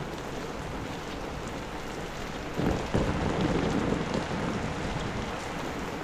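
Heavy rain falling steadily. About two and a half seconds in, a louder low rumble rises over the rain for a second or so, then fades back.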